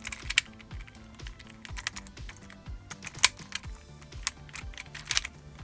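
Mobius fidget cube, hinged translucent plastic blocks with weighted metal ball bearings inside, being folded in the hands: irregular sharp clicks and clacks as the blocks flip over and the bearings shift, the loudest about three seconds in. Soft background music with a repeating low note underneath.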